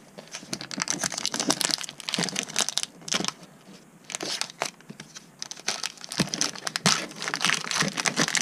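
Foil wrapper of a Pokémon TCG booster pack crinkling and crackling as it is handled, in irregular bursts that grow louder around three seconds in and again near the end.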